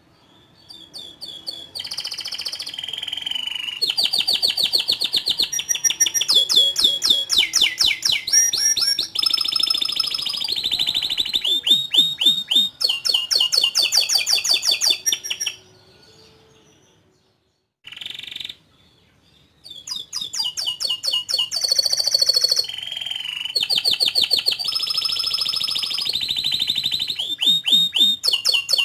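Domestic canary singing a long, vigorous song of fast trills and quick repeated chirps. It breaks off for a few seconds about halfway through, then starts again.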